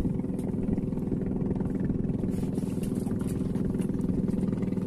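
A boat's engine running steadily at an even speed, with a fast, regular pulsing.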